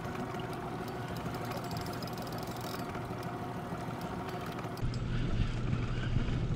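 Boat engine running steadily at idle, a constant hum with a few steady tones. About five seconds in the sound changes abruptly to a heavier low rumble.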